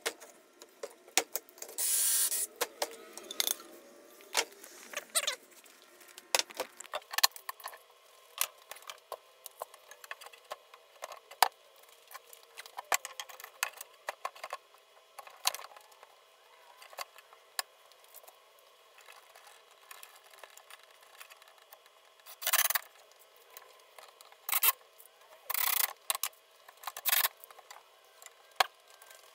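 Ryobi cordless drill running in short bursts, once near the start and several times near the end, working pocket-hole joints in pine boards. Between the bursts, frequent clicks and knocks of boards and tools being handled.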